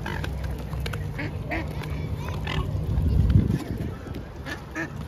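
A crowd of mute swans jostling and feeding at close quarters: many short calls, beak clicks and scuffling over a steady low rumble, with a louder low burst of scuffling about three seconds in.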